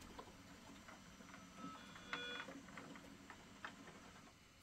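Near silence, with faint scattered ticks and a short, faint tone a little past halfway.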